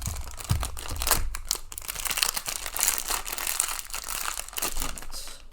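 Plastic packaging crinkling and tearing as a new 7x7 speedcube is unwrapped, a busy run of small crackles and rustles.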